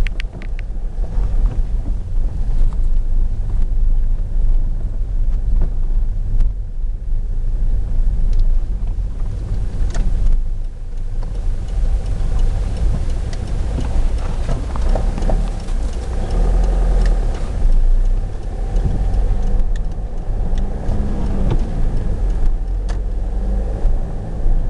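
Car in motion heard from inside the cabin: a steady low rumble of engine and road noise.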